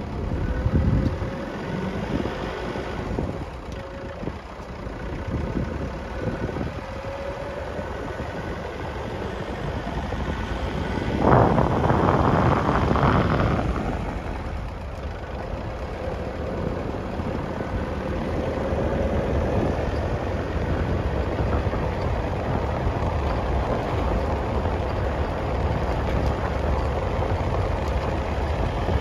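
Vehicle driving on a dirt road: steady engine and tyre rumble, with a louder rush of noise about eleven seconds in that lasts a couple of seconds.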